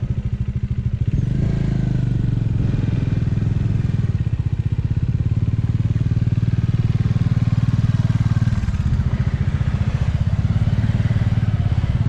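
Single-cylinder motorcycle engine running steadily under throttle while the bike is ridden two-up over a rough dirt track, its exhaust pulsing evenly, easing briefly about four seconds in and again near nine seconds.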